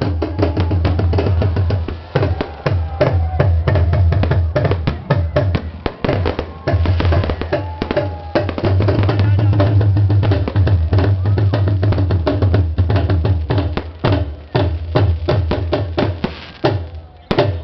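Loud music with a heavy drum beat and voices, with rapid, irregular firework bangs and crackling over it.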